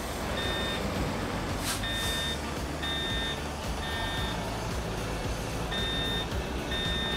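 Electronic warning beeps of a single steady pitch, each about half a second long, repeating roughly once a second with a short pause in the middle, over background music. A brief whoosh comes about two seconds in.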